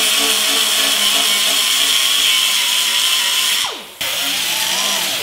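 Small pneumatic air grinder running at full speed, grinding welded steel pull pins off a car's wheel-arch panel: a steady high whine with a hiss of air. About three and a half seconds in it is let off and winds down with a falling pitch, then is started again at once and runs on until it winds down near the end.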